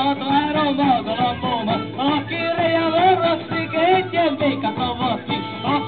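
Live band music played through a PA system: a melody that wavers in pitch over plucked-string accompaniment, folk in style.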